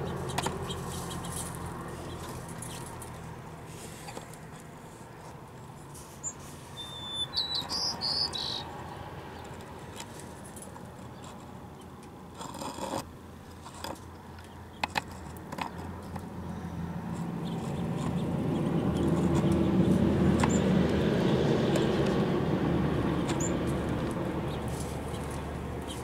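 Small songbirds at a seed feeder giving a few short high chirps about seven seconds in, with some faint clicks. In the second half a low rumble swells up and fades away.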